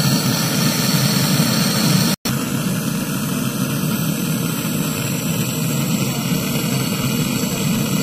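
Gas brazing torch flame burning with a loud, steady rushing hiss as it heats a copper refrigerant pipe joint to red heat for brazing. The sound cuts out for an instant about two seconds in.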